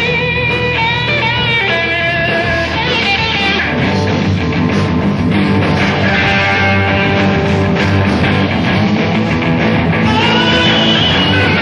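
Live rock band playing a fast rock and roll number: electric guitar lead lines bending over bass guitar and drums, dense and loud, on a 1969 audience-style bootleg recording with dull, cut-off treble.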